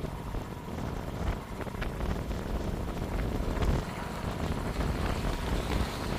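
Wind buffeting the microphone: a steady, low, noisy rumble.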